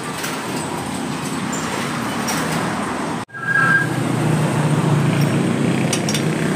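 Steady motor-vehicle engine noise with a low hum. The sound drops out for an instant about three seconds in, and the hum is louder after it.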